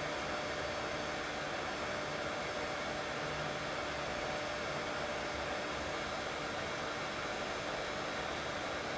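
Steady white noise for soothing a baby, even and unchanging, with a faint hum running through it.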